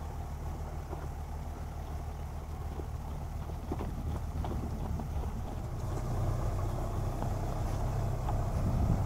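Tractor engine running steadily while working a mounted boom sprayer. It gets louder about two-thirds of the way through as the tractor approaches.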